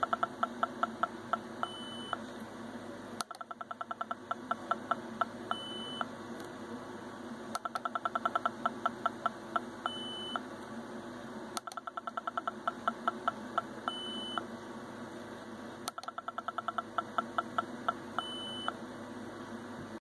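Small speaker on an Arduino dice circuit playing its dice-roll sound effect five times: a run of quick ticking beeps that slows down, then one short higher beep as the rolled number is shown.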